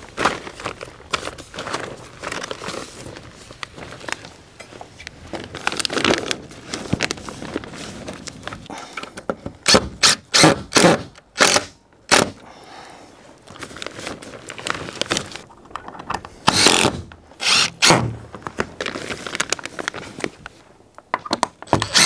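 Work sounds of fastening greenhouse plastic to a wooden batten: plastic sheeting crinkling and rustling, scrapes and knocks, and short bursts from a cordless drill driving screws into the wood. The loudest bursts come in clusters about ten to twelve seconds in, again a few seconds later, and near the end.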